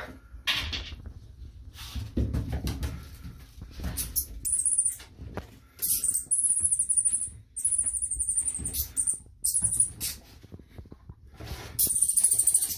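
A mole squealing: several long, very high-pitched squeals of a second or so each, the last near the end. Between them come scrabbling and light knocks against the bathtub.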